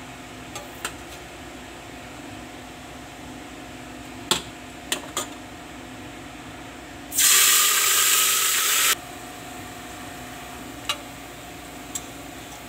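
Light clinks of utensils against steel cookware, with a loud rushing hiss of about two seconds near the middle, over a steady hum.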